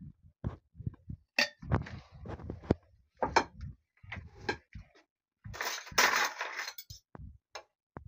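Kitchen crockery clatter: a serving spoon scraping and knocking in a metal cooking pot, and plates clinking as they are set down on a table, with a longer scraping noise about six seconds in.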